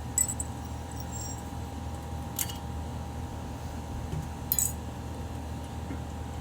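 Three light metallic clinks, near the start, in the middle and about two-thirds through, as small metal brake parts are handled, over a steady background hum.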